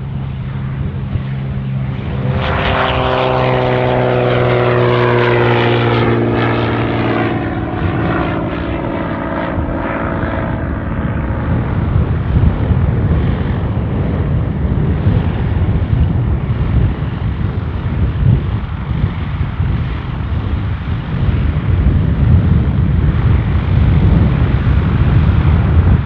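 A Cirrus single-engine propeller plane passes at speed along the runway, its engine and propeller drone sliding down in pitch as it goes by. After that, a light high-wing taildragger's propeller engine runs unevenly as it taxis closer, getting louder towards the end.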